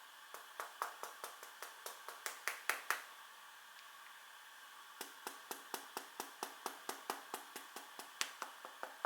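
A Huawei P8 Lite smartphone being knocked on in a quick series of light clicking taps, about four a second, stopping for about two seconds in the middle and then starting again. Each knock shakes something loose inside the phone, which the owner suspects is the camera lens or an unfastened internal antenna.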